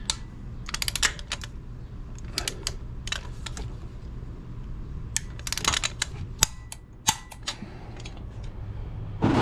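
Ratcheting torque wrench clicking in short rapid bursts as the module's mounting bolts are run down and torqued, with a few single sharper clicks between the bursts.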